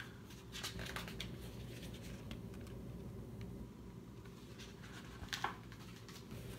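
Faint rustling and small clicks of a hardcover picture book being handled and its page turned, with one sharper click a little past five seconds in, over a steady low room hum.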